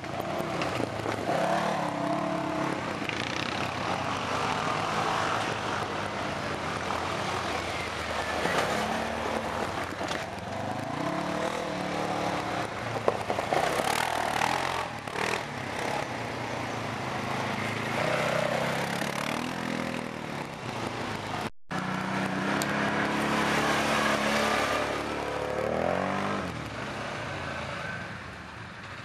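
Engines of off-road quad bikes and a side-by-side UTV passing one after another on a dirt trail, revving up and down as they go by. The sound drops out for a split second about three-quarters of the way through.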